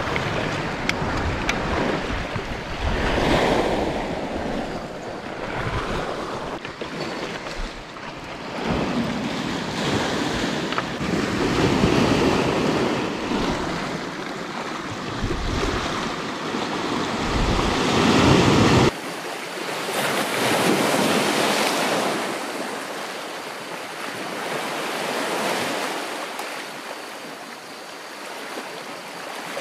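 Sea waves washing against a rocky shore in swells that rise and fall, with wind rumbling on the microphone. About 19 seconds in, the wind rumble cuts off abruptly and the surf carries on.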